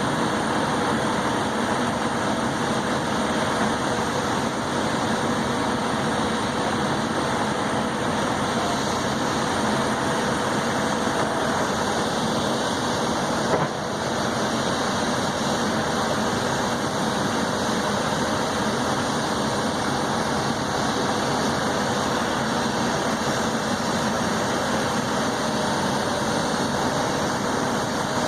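An engine idling steadily, with one short knock about fourteen seconds in.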